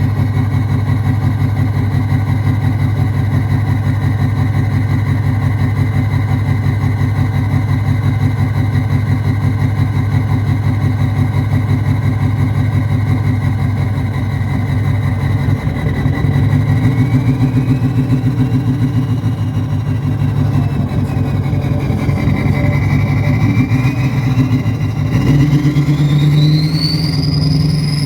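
Ford 6.0 Power Stroke (Navistar VT365) V8 turbo diesel running through a straight-piped exhaust, a steady low, pulsing engine note; the uploader blames bad injectors. Near the end the note gets heavier and a high whistle rises in pitch.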